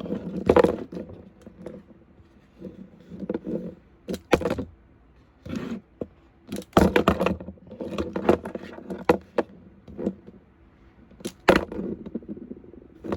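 Plastic toy monster trucks being flipped and handled: irregular knocks, clatters and scrapes as the toys strike and land on a surface, about a dozen in all.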